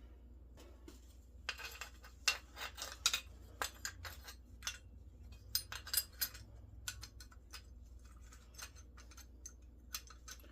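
Small metal parts clinking and clicking against each other as cut pieces of a door handle are handled and fitted: an irregular run of sharp clicks that thins out after about seven seconds.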